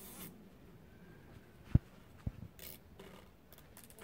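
Faint scraping and rustling of hands at work on a birdhouse strapped to a pine trunk with zip ties, with two dull low thumps about half a second apart a little under two seconds in.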